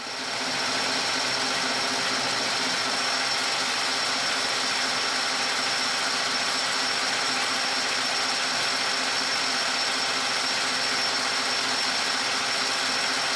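South Bend metal lathe running steadily while the tool takes a facing cut across an aluminium part: an even mechanical whir with a high, thin whine over it, coming up to full level in the first second.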